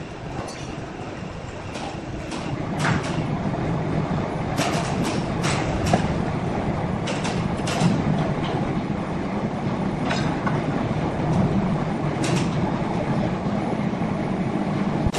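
Sawmill machinery running with a steady low rumble that grows louder over the first few seconds. Sharp metallic clanks and knocks come at irregular intervals.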